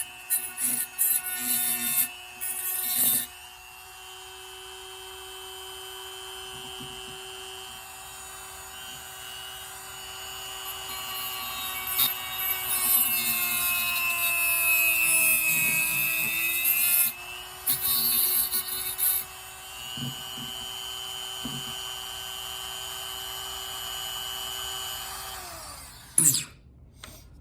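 Rotary tool with a small cutting wheel running at a steady whine while it cuts away a wedge in a knife handle, with rough stretches of cutting noise. Its pitch sags under load in the middle. Near the end the motor winds down and stops.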